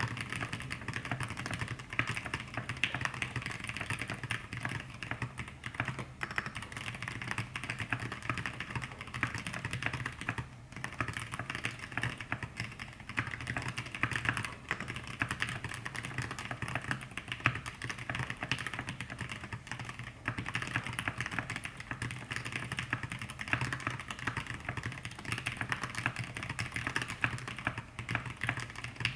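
Continuous typing on an aluminium-plate E6-V2 mechanical keyboard with lubed Zealios 65g v2 tactile switches and thick KAT Alpha PBT keycaps: a dense, steady run of keystroke clacks, with brief pauses about ten and twenty seconds in.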